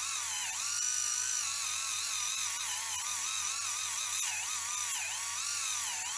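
Kemei electric callus remover's motor-driven roller spinning against hard skin on the heel, grinding it off with a steady high whine. The pitch dips and recovers several times.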